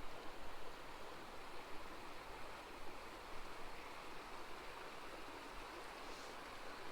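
Small creek flowing: a faint, steady rush of water.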